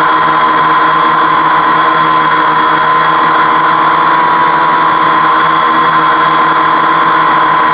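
Homemade 520 mm quadcopter hovering, its electric motors and propellers giving a steady whine whose pitch wavers slightly as the motors adjust.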